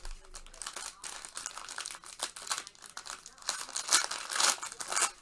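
Plastic trading-card packaging crinkling and rustling as it is handled and opened, a run of sharp crackles that is loudest near the end.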